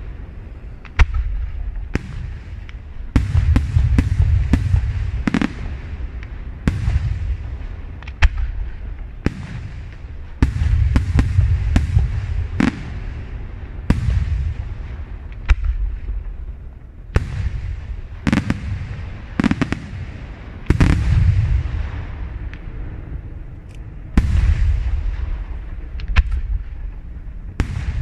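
Aerial firework shells bursting one after another in a night display, sharp bangs every second or so, each followed by a low rolling rumble.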